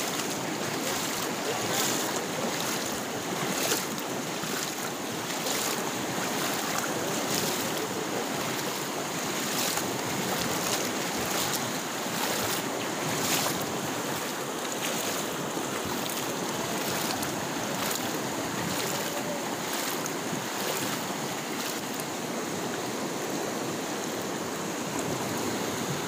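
Kabini river in flood rushing past and over a low bridge, a steady wash of moving water, with short splashes every second or so in the first half as feet walk through the shallow water on the road.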